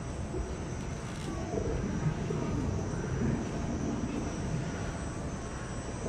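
Steady low rumble of background noise with faint, indistinct voices mixed in.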